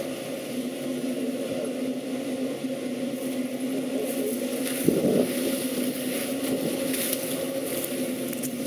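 An engine running steadily, a constant low hum of several even tones, with scattered short crackles and scrapes and one brief thump about five seconds in.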